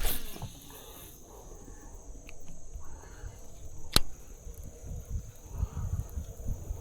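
Steady high-pitched insect chirring, with a single sharp click about four seconds in and low rumbling noise in the latter half.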